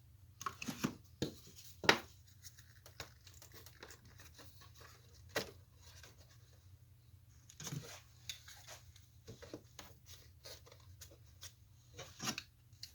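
Hand work at a workbench: scattered light knocks and clicks with rustling between them, the sharpest knock about two seconds in, over a steady low hum.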